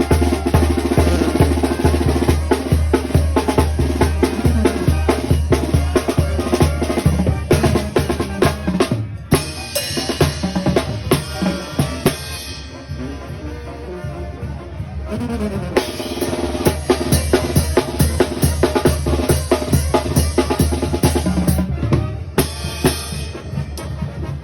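Mexican banda, a brass band, playing live: a steady, driving drum beat over a low bass line. It drops out for a moment about nine seconds in and plays softer for a few seconds around the middle.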